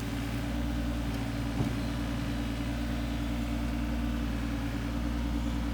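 Diesel engine of a LiuGong 9035E mini excavator running steadily at idle, with a single short knock about one and a half seconds in.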